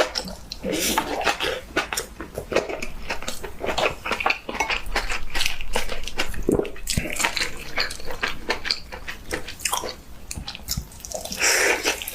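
Close-miked eating: wet chewing and slurping of Korean food, with many short clicks and occasional clinks of utensils on dishes.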